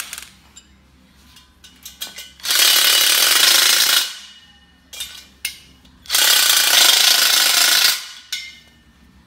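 Cordless power driver with a socket running bolts tight into a square-tube steel frame: two runs, one of about a second and a half and one of about two seconds, with light metal clicks of the socket being set on the bolt heads before and between them.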